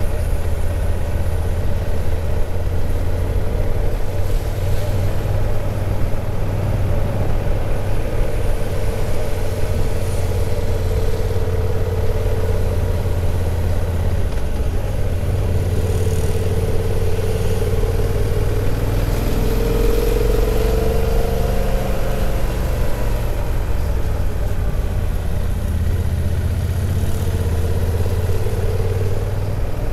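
A vehicle running: a steady low rumble, with a fainter tone above it that slowly rises and falls in pitch.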